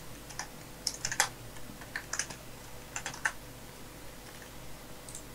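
Computer keyboard keys and mouse buttons clicking in small clusters, about one cluster a second, over the first three seconds or so.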